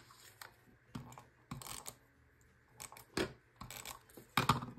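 Cut cardstock pieces being handled and set down on a scrapbook page: a series of short rustles and light taps, the loudest about three seconds in and near the end.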